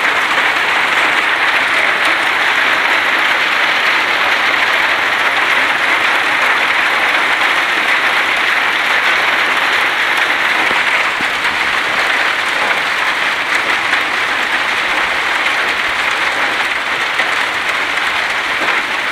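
Heavy hail, stones about 1.5 to 2.5 cm across, falling with rain: a loud, dense, steady rush of countless small impacts, easing slightly about halfway through.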